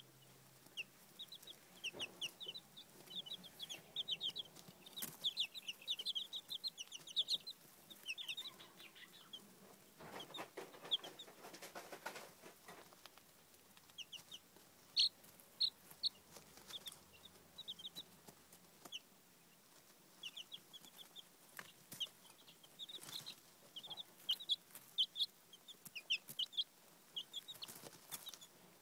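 Baby chicks peeping: many short, high chirps coming in quick runs, thinning out for a while near the middle, with some rustling there.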